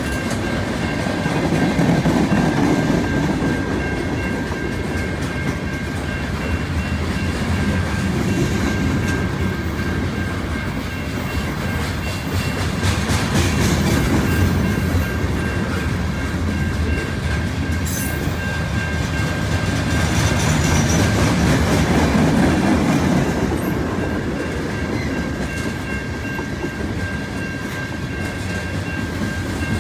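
Freight cars of a long mixed train (tank cars, boxcars and covered hoppers) rolling past close by: a steady rumble and clickety-clack of steel wheels on the rails that swells and eases every few seconds, with a faint steady high ring.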